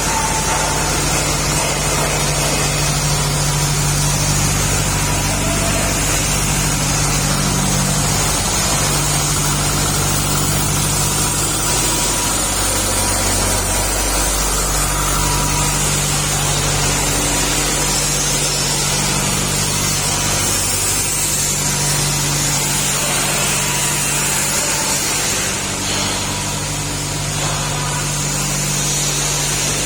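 Rice milling machine running steadily: a loud, even drone with a low hum under a broad hiss.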